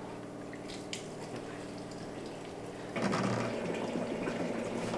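Liquid running into a container, growing suddenly louder about three seconds in, over the steady hum of a reverse osmosis machine's pump processing maple sap.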